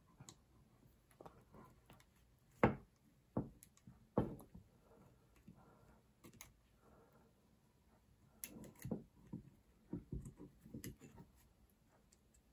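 Quiet, scattered clicks and knocks of the small steel parts of a Yildiz 20 bore shotgun action being handled and fitted by hand, with a run of soft taps in the second half.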